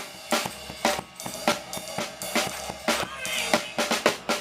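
Drum kit playing a steady beat, bass drum and snare hits about twice a second, backing gospel music with a little singing or keyboard near the end.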